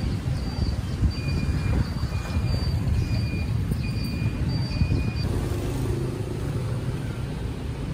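City street traffic: a steady low rumble of passing vehicles, with a run of about five short, evenly spaced high beeps in the first half.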